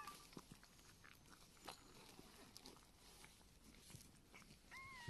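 Faint scattered clicks and rustling, then near the end one short high-pitched mew from a newborn kitten.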